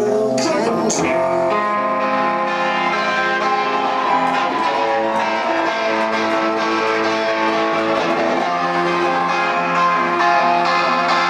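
Live band playing: electric guitar strummed through a Marshall amplifier, with drums.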